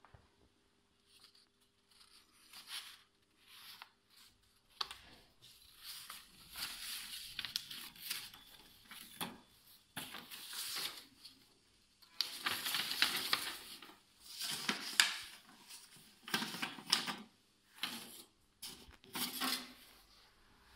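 Paper rustling and crinkling in a string of irregular bursts as a folded sheet is handled and pushed into the slot of a metal mailbox. The loudest bursts come a little past the middle.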